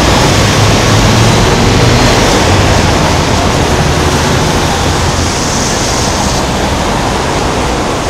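Loud, steady roar of heavy city road traffic, with buses, a truck and cars passing close by at a busy intersection.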